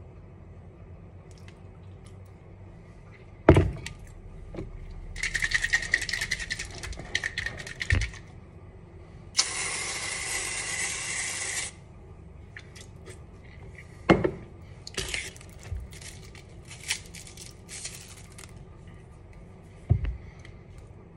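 Aerosol whipped-cream can spraying: a steady hiss of about two seconds, with shorter spurts and sputters before and after it. A few sharp knocks of things set down on the countertop.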